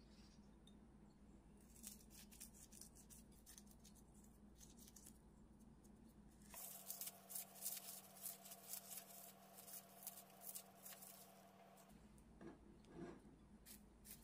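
Faint, crisp crackling and rustling of a dried seaweed (gim) sheet being crumbled by hand. It grows denser and louder about halfway through, for around five seconds.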